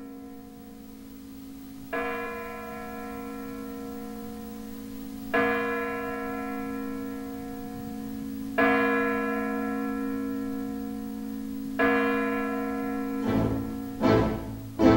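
A deep bell tolls four times, about three seconds apart, each stroke ringing on and dying away slowly over a steady low drone in the music score. Near the end, louder, sharper hits break in.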